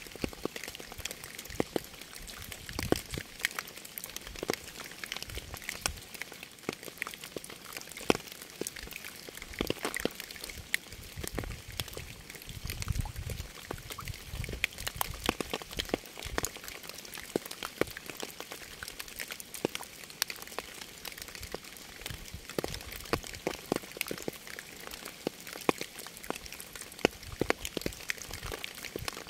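Rain falling: a steady hiss with many separate drops striking a surface. A brief low rumble comes about halfway through.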